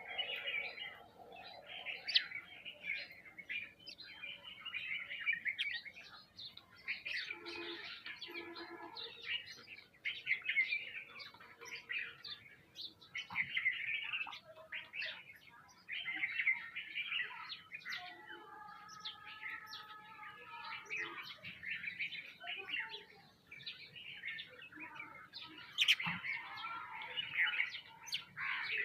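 A flock of house sparrows chirping busily and continuously, with mynas calling among them. One longer, held call comes about two-thirds of the way through.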